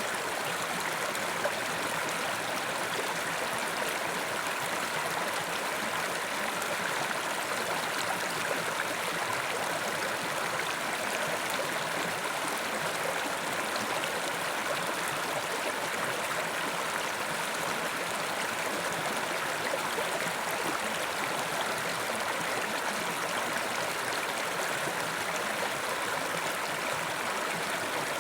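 Carpathian mountain river rushing and gurgling over rocks, a steady unbroken flow.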